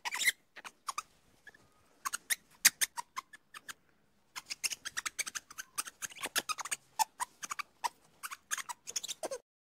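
Ring-tailed lemur chewing leafy greens: quick irregular runs of crisp crunching clicks, with a brief pause about four seconds in.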